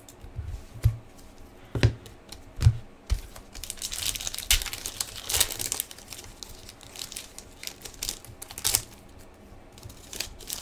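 Foil wrapper of a 2015-16 Fleer Showcase hockey card pack crinkling as it is torn open. Three sharp knocks come in the first three seconds.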